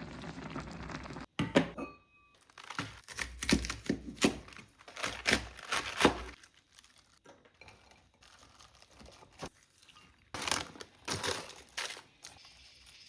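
Plastic food packaging crinkling and tearing, with the knocks and clicks of containers and ingredients being handled and set down.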